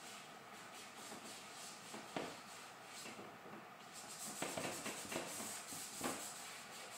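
Fingertips rubbing charcoal into drawing paper to blend it: a faint, dry rubbing hiss made of short strokes, with a few louder strokes about two seconds in and again in the second half.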